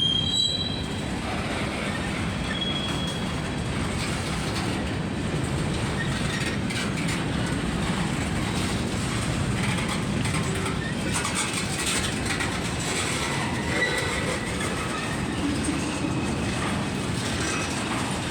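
Freight train cars rolling past close by: a steady rumble of steel wheels on rail with clicking over the rail joints. A few brief, high wheel squeals come in near the start and again about two-thirds of the way through.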